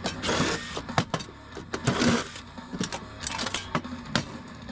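Small metal scrap parts and hand tools being handled on a workbench: a run of sharp clinks and knocks, with two short scraping rustles about a third of a second and two seconds in.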